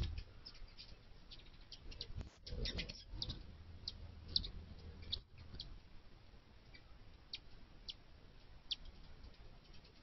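Hummingbird giving short, high chip notes at irregular intervals, several close together in the first half and a few scattered ones later.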